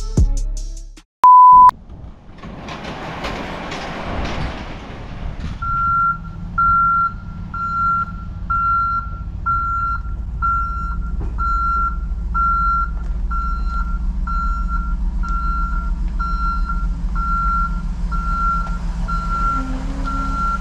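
A box truck backing up: its reversing alarm beeps steadily, a bit more than once a second, from about six seconds in, over the low, steady running of the truck's engine. Before that the backing music ends, a short electronic beep sounds about a second in, and a swell of noise rises and fades.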